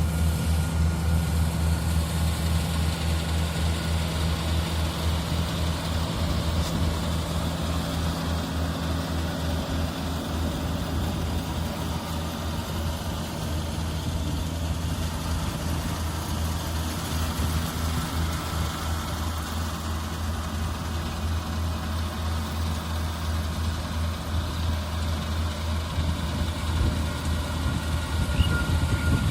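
Daedong DSC62G half-feed combine harvester running steadily: an even engine drone with a constant low hum and a faint steady whine.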